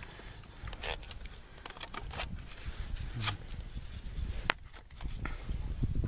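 Knife scraping and tapping canned porridge out of a tin can into a metal mess tin: a handful of scrapes and clicks, the sharpest about four and a half seconds in, over a low steady rumble.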